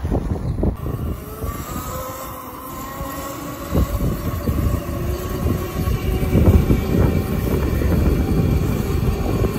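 Monster Moto 1000 electric mini dirt bike's motor whining as it is ridden, the pitch drifting with speed. A low rumble builds from about four seconds in.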